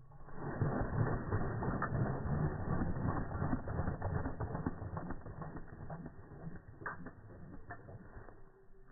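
A horse's sneeze played back in slow motion, stretched into a long, low, crackling rattle of closely packed clicks. It builds about half a second in and slowly fades over the following seconds, with a few sharper clicks near the end.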